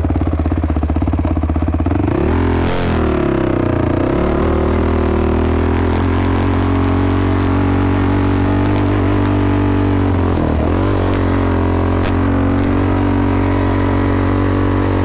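Sport ATV engine running hard at high, steady revs while ridden around a dirt track. Twice, about three seconds in and again about ten seconds in, the revs drop and climb back as the throttle comes off and back on.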